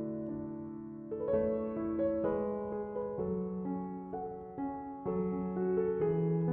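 Soft background piano music: a slow melody of sustained notes over low held notes.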